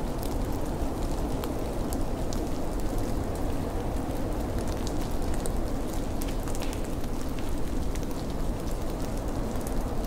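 Steady snowstorm ambience: an even, low rumble with scattered faint ticks of snow landing.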